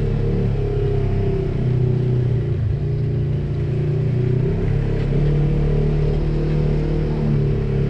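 Polaris RZR side-by-side's engine running steadily under light throttle, its note rising and falling a little as it drives a rocky trail.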